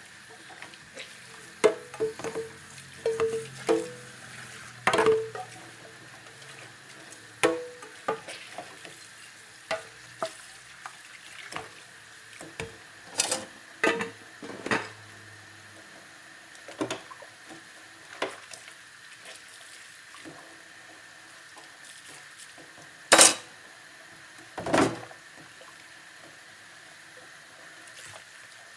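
Dishes and cutlery clinking and knocking against each other while being washed by hand in a sink. The clinks are irregular and each rings briefly, over a faint steady hiss. Two sharper, louder knocks come near the end.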